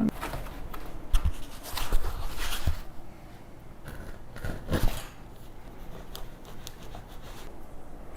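Handling noise from compost tumbler parts being fitted by hand: scraping and rustling with a few short knocks, loudest about a second and two seconds in and again near five seconds.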